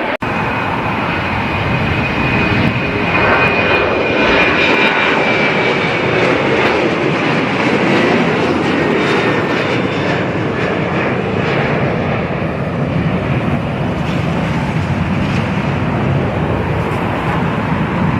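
Jet airliner's engines, a loud steady rushing noise with a high whine that slowly falls in pitch over the first several seconds.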